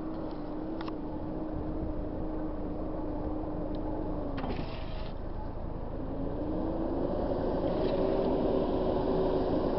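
Truck engine approaching on a dirt road: a steady drone that sags in pitch and fades about four and a half seconds in, then climbs back up and grows louder as the truck nears.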